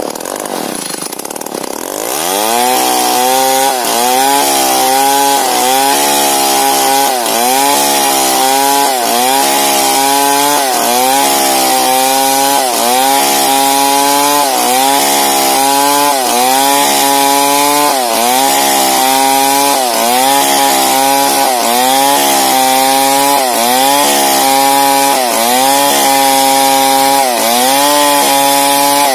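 Stihl 070 chainsaw, a big two-stroke, ripping a large log lengthwise into boards. About two seconds in it revs up to full throttle, and under load its pitch dips and recovers about once a second as the chain bites into the wood.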